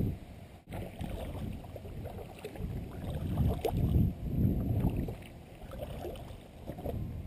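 Water sloshing against a plastic sit-on-top kayak's hull, with wind on the microphone, rising and falling in a few low swells and a few light knocks.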